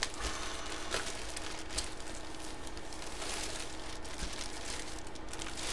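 Faint rustling of plastic packaging being handled, with a few light clicks.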